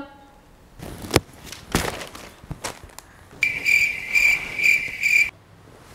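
Cricket chirping in a short run of repeated chirps, about two a second, that starts and stops abruptly about halfway in: an awkward-silence sound effect. Before it there are a few faint knocks.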